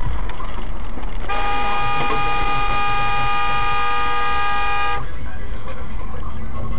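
Car horn held in one long steady blast of nearly four seconds, starting about a second in and cutting off abruptly, over the road and engine noise heard inside a moving car.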